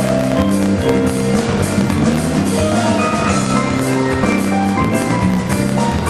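Instrumental music with a steady beat.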